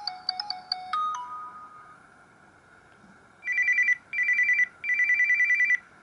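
Samsung Corby GT-S3650 phone speaker playing two stock ringtone previews: first a quick run of bright electronic chime notes that drops to two lower notes and fades about two seconds in ('Short tone'), then after a pause a fast-pulsed electronic trill in three bursts ('Single tone').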